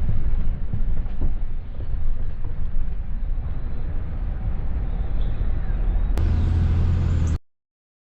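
Pickup truck on the road, a steady low rumble of engine and road noise. About six seconds in it changes suddenly to a steadier hum, then cuts off abruptly to silence near the end.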